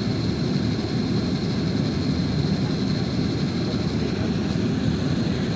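Steady cabin noise inside an Airbus A330-900neo on descent: a low, even rumble of airflow and its Rolls-Royce Trent 7000 engines, with a thin steady high whine on top.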